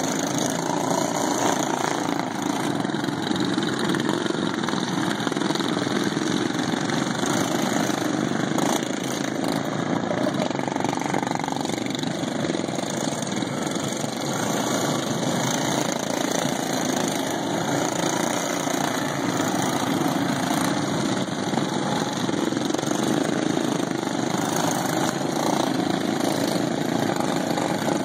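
A pack of racing lawn mowers with factory-stock single-cylinder engines running together around a dirt track, a steady, even engine drone.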